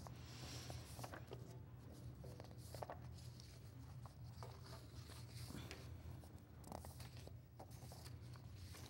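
Faint rustling and crinkling of sheets of paper being handled and shuffled, over a low steady hum.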